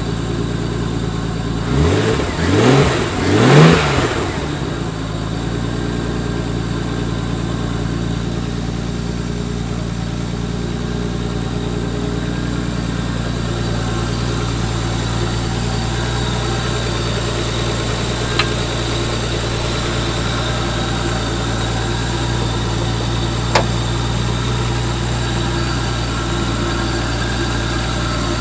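Nissan RB25 turbocharged straight-six, freshly fitted with a Tomei Arms MX8265 turbo, running just after its first start: three quick throttle blips about two seconds in, each rising and falling, the last the loudest, then a steady idle. Two faint clicks later on.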